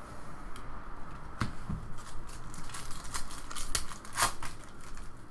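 Hockey trading cards being slid and flipped through by hand, an irregular run of light clicks and rustles that comes thickest in the second half.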